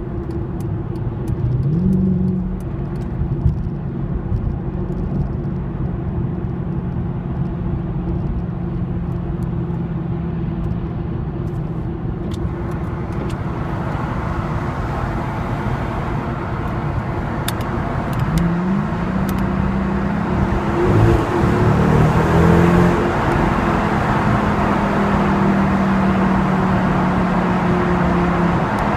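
Mercedes-Benz CLS55 AMG's supercharged V8 running under way. The engine note rises briefly about two seconds in and again, through a few steps, around eighteen to twenty-two seconds in, while road noise grows louder from about twelve seconds on.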